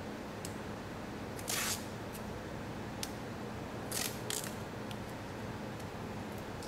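Paper sheet being handled: one short, sharp swish about a second and a half in, two more about four seconds in, and a few faint clicks, over a steady low hum.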